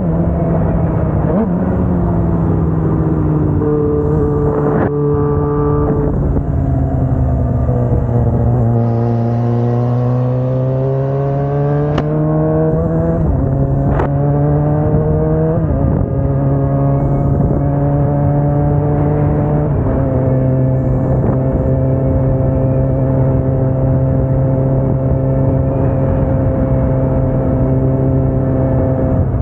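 Kawasaki Ninja sport bike engine heard on board while riding. The revs hold, then fall and climb again, and step several times. Two sharp clicks come about halfway through, and the engine then settles into a steady cruise from about two-thirds of the way in.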